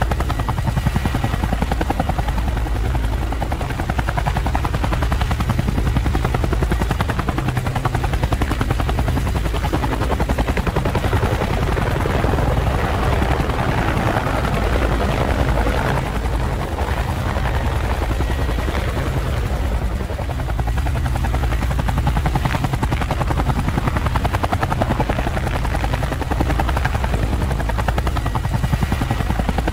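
Camera drone's propellers running steadily in hover: a continuous low, fluttering hum.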